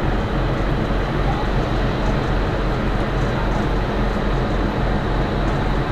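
Ferry's engines running steadily as the ship gets under way: a continuous heavy rumble with a low throb pulsing about five times a second, heard from the open deck.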